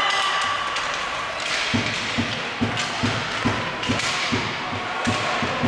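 Ice hockey rink ambience: dull thumps about twice a second start a couple of seconds in and keep an even beat, over a hiss that swells and fades as skates scrape the ice.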